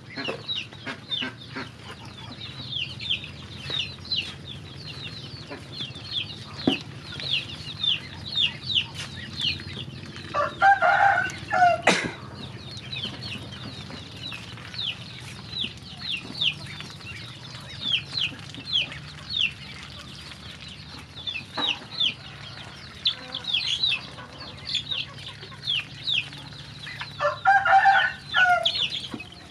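A flock of ducklings and chicks peeping, with many short, high calls several a second, each falling in pitch. Twice, a longer, lower call from an adult chicken, like a rooster crowing, breaks in, and there is one sharp click near the middle.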